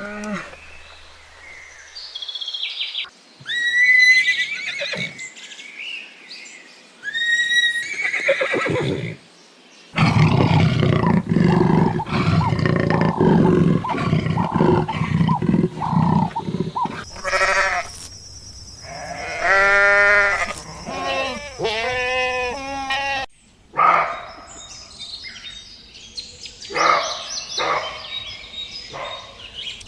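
A series of farm-animal calls, changing abruptly every few seconds from one animal to the next.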